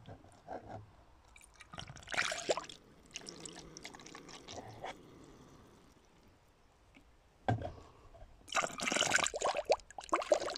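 Green antifreeze coolant poured from a plastic jug into the coolant filler of an Arctic Cat Wildcat 700 side-by-side, splashing and gurgling into the reservoir as the cooling system is filled. It pours in two spells, the second, from about two-thirds of the way in, the louder.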